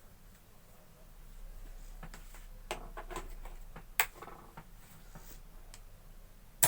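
Scattered clicks and knocks from handling a small electric water pump motor, with a faint low hum in the background. Right at the very end a much louder steady hum cuts in.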